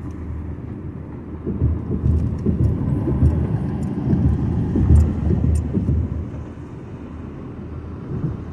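Road noise inside a moving car: a steady low rumble of tyres and engine that swells for a few seconds in the middle, then settles again.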